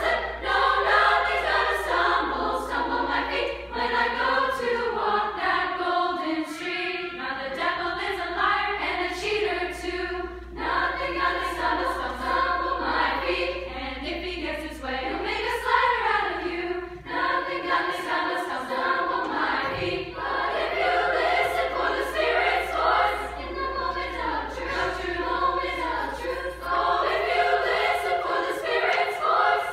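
Women's choir singing in parts, with short breaks between phrases about ten and seventeen seconds in.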